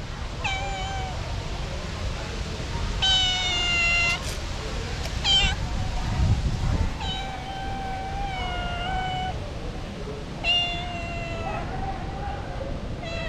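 Calico cat meowing repeatedly, about six drawn-out meows, the longest lasting about two seconds: a hungry cat crying for food. A brief low thump about six seconds in.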